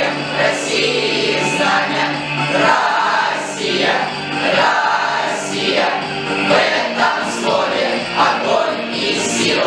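Music with a choir singing over accompaniment, steady and full throughout.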